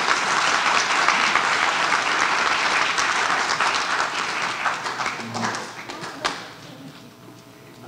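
Audience applauding, dying away about six and a half seconds in.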